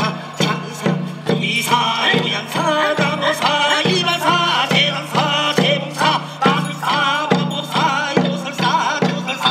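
Korean pungmul folk band playing: drums keep a steady beat, and a wavering melody line comes in about a second and a half in.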